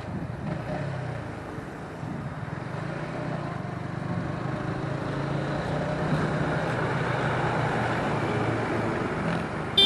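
Motorcycle engine running while riding on a highway, with wind and road noise and passing traffic, growing gradually louder.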